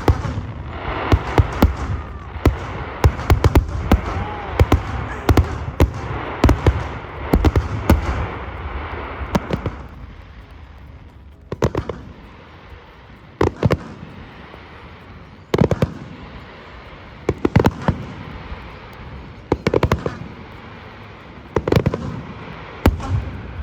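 Fireworks going off. A dense run of bangs and crackle lasts about the first ten seconds, then single booms follow about every two seconds.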